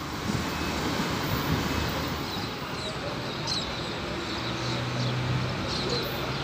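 Electric commuter train approaching a station platform, a steady rumble with a low hum coming in about four and a half seconds in. A few short high chirps sound over it.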